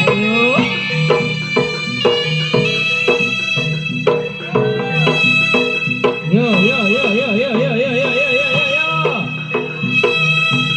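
Jaranan music from a Javanese ensemble: drums keep a regular beat under held melody notes. From about six seconds in, a wavering, pitch-bending melody line runs for about three seconds.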